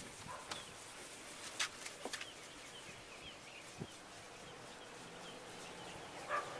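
Faint outdoor ambience with a few light clicks and short, high chirps.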